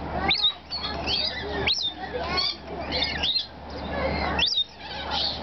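Rainbow lorikeets calling: a busy stream of short, high chirps with quick upward sweeps, several a second and overlapping.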